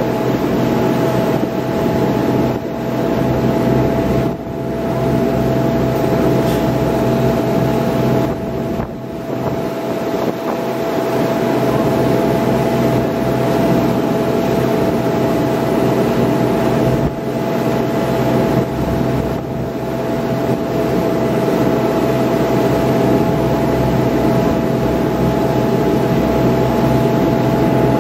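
Inboard engine of a small passenger shuttle boat running steadily under way: a constant drone and hum over the rush of water and wind.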